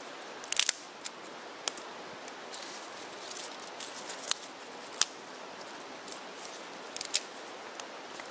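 Sticks burning in a small wood-gasifier camp stove, crackling with scattered sharp pops over a steady hiss. The loudest cluster of pops comes about half a second in, with single pops around four and five seconds and two more near seven seconds.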